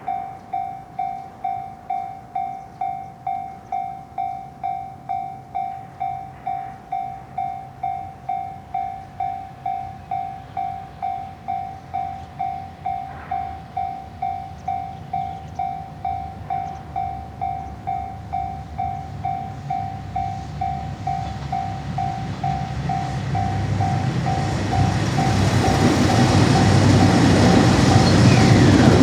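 Japanese railway level-crossing alarm ringing its repeated 'kan-kan' about twice a second, then a train approaching and passing. The train's rumble builds over the last several seconds and covers the bell.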